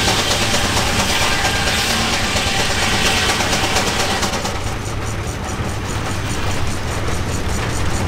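Engine-driven sawmill machinery running steadily at idle, with no blade in the wood, giving a constant low hum.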